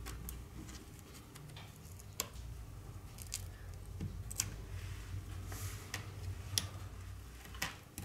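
Scattered small clicks and taps of hand tools working on a phone, over a low steady hum.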